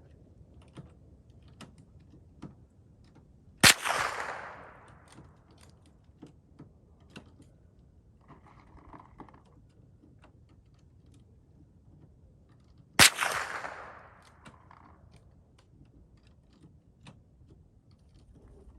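Two rifle shots about nine seconds apart, each cracking sharply and then echoing away over about a second.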